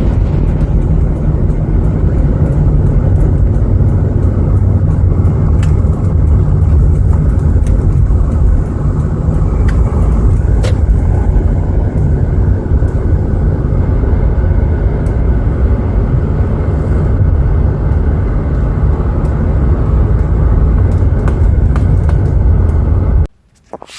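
Steady, loud wind and road noise from a convertible being driven, rumbling heavily in the low end. It cuts off abruptly near the end.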